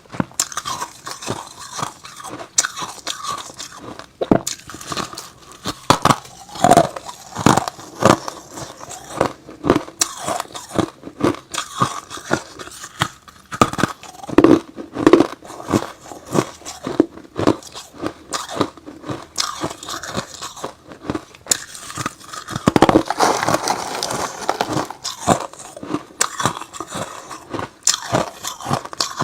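Close-miked crunching of hard ice being bitten and chewed: repeated sharp cracking bites and crackling chews. A dense, louder burst of crunching comes a little over two-thirds of the way in.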